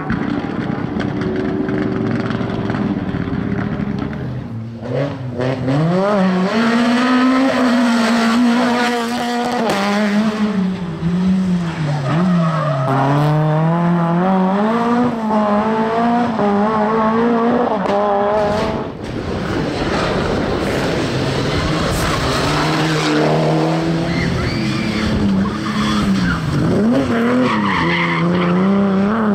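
Rally cars driven hard through corners one after another: engines revving up and down through gear changes, with tyre squeal as they slide.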